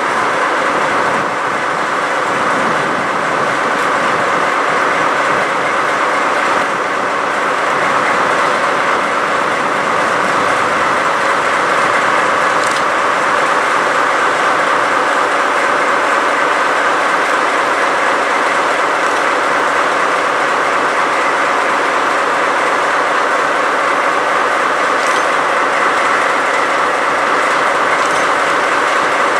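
A JNR Class DD51 diesel-hydraulic locomotive standing with its engines running: a loud, steady diesel drone.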